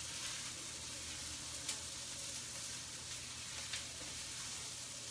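Chopped onion and garlic sizzling steadily in hot olive oil in a frying pan as they brown and soften, with two light clicks about two seconds apart.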